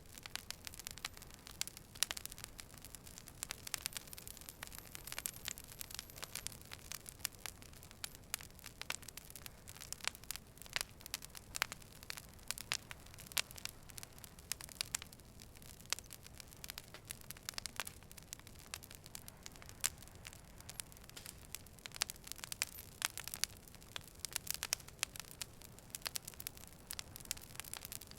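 Fire burning with dense, irregular crackling and popping over a soft steady hiss. A faint high whistle sounds over the first few seconds.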